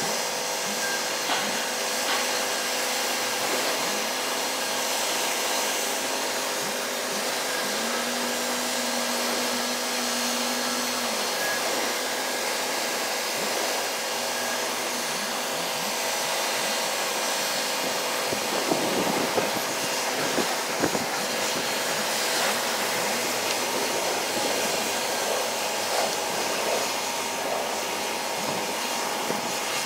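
Steady rushing hiss of wind and rain with a steady machinery hum of several tones underneath, and a few knocks about two-thirds of the way through.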